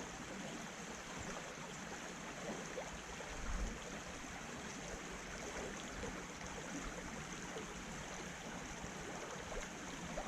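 Small creek water running steadily, a soft even rush, with a brief low bump about three and a half seconds in.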